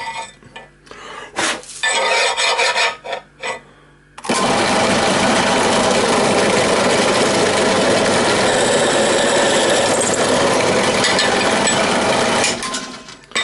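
Bench drill press running, with a few knocks and clatter as the metal casting is positioned on the table; about four seconds in a 6.5 mm twist drill bites in and cuts the centre hole with a loud, steady grinding noise for about eight seconds, which stops abruptly near the end.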